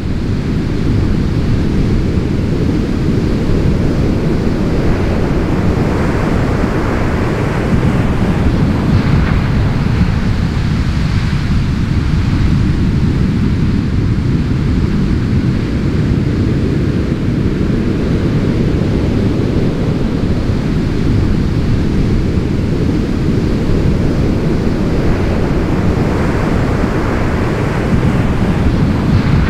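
Heavy ocean surf: big waves breaking, a continuous deep rush with wind, swelling into a louder hiss a few times as waves crash.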